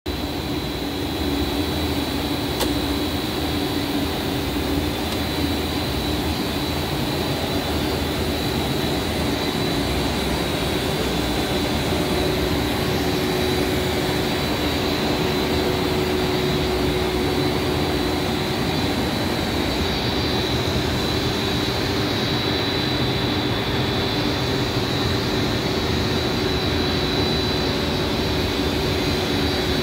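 HDPE pipe extrusion production line running: a continuous, even machinery drone with a steady high whine.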